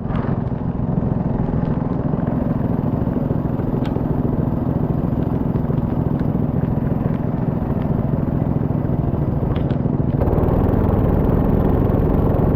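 Go-kart engine running steadily, with a few sharp clicks; the sound turns fuller about ten seconds in.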